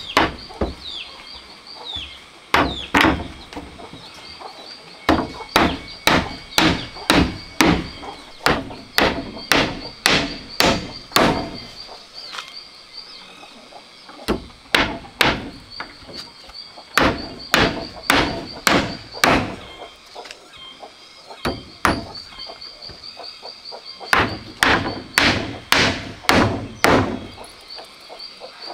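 A hammer driving nails into wooden slats: runs of sharp blows about two a second, broken by short pauses. A faint high pulsing trill runs in the background.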